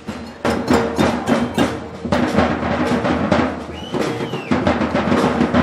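Street drum group playing a fast, loud rhythm on snare and marching drums, the drumming picking up strongly about half a second in.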